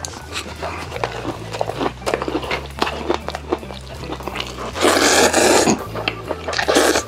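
Close-miked chewing with wet mouth clicks, then a loud slurp of noodles about five seconds in and a shorter one near the end. Background music with a low bass line plays under it.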